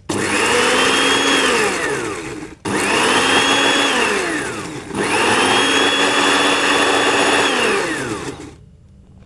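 Electric blender's spice-grinder cup running in three pulses, each starting abruptly and falling in pitch as the motor winds down. It is blending pandan leaves with water and dish soap to clean the spice smell out of the cup.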